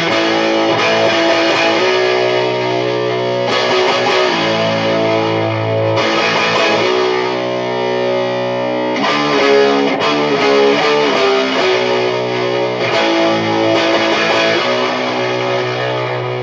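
High-gain distorted electric guitar played through a Mesa/Boogie Dual Rectifier amp, on the neck pickup of Bare Knuckle Painkiller humbuckers in drop B tuning, heard through a camera microphone. Ringing chords are held for a few seconds each, with a quicker passage of changing notes in the middle.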